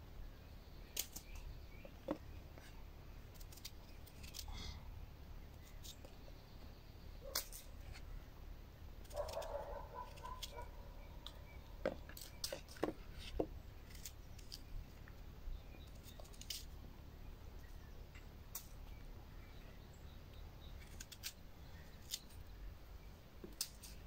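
Small folding knife's carbon-steel blade cutting and peeling an apple on a wooden cutting board: scattered light clicks and crunches as the blade goes through the fruit and taps the board.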